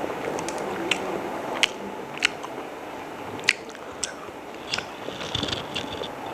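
A person chewing and biting chicken biryani up close, with sharp crunchy clicks about once a second.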